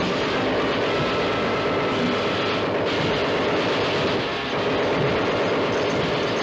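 Cartoon sound effects of a giant robot's mechanical clanking mixed with rapid submachine-gun fire, blending into one loud, steady rattle.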